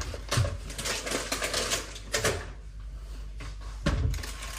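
Paper packet crinkling and rustling as it is handled, with rapid light clicks and a few soft knocks.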